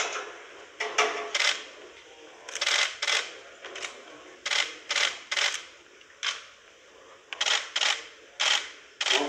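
Camera shutters clicking again and again at uneven intervals, often two or three in quick succession.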